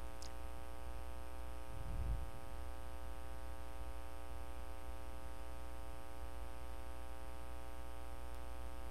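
Steady electrical mains hum from the recording setup, with a soft low thump about two seconds in.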